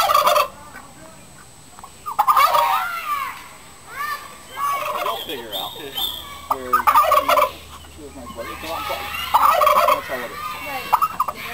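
Domestic turkey calling in a series of loud bursts a second or two apart, each a quick run of rising and falling notes.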